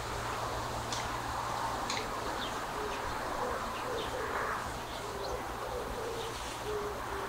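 Wild birds calling: scattered short, high chirps and a lower, repeated short call, over a steady low hum.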